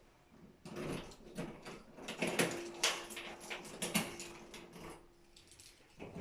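A door being handled: a run of clicks and knocks, with a faint steady tone under them for about three seconds in the middle.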